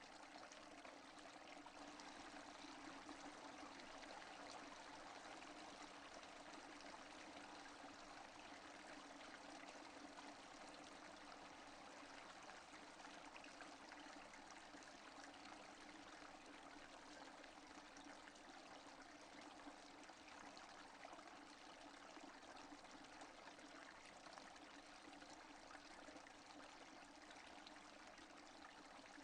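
Faint, steady rainfall: an even hiss of many drops with no thunder.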